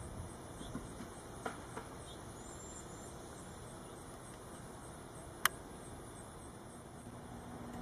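Quiet outdoor background hiss with a few faint clicks, one short high thin note, and a single sharp click about five and a half seconds in.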